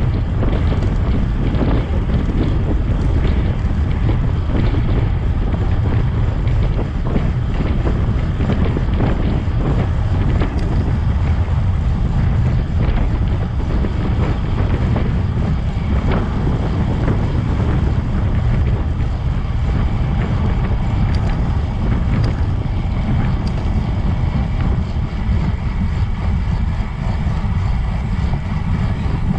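Loud, steady wind buffeting the microphone, a deep rumble strongest in the low range.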